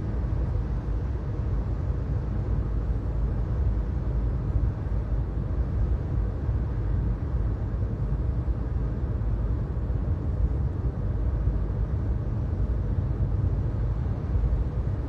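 Steady low road and engine rumble heard inside a car cruising at highway speed.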